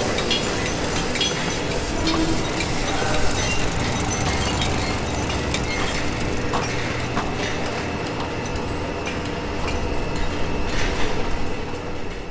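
Car assembly-line factory noise: a steady machinery hum with many scattered metallic clinks and clicks.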